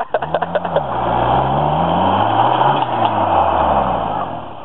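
1991 Isuzu Amigo's engine revving hard while offroading, its pitch climbing and dropping several times as the throttle is worked. A quick rattle of clicks comes in the first second.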